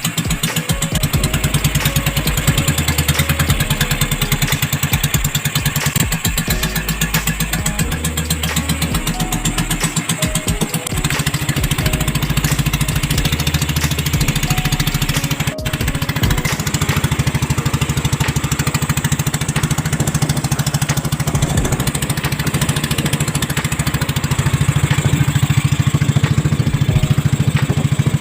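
Small boat engine running steadily with a rapid, even putter; it grows somewhat louder about eleven seconds in.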